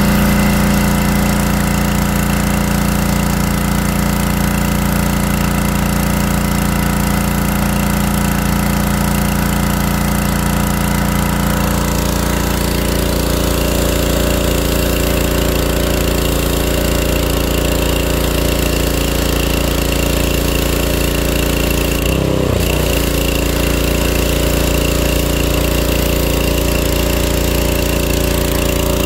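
A pressure washer's small gasoline engine runs steadily under load while its wand sprays water onto the car's body. About two-thirds of the way through, the engine pitch briefly dips and recovers.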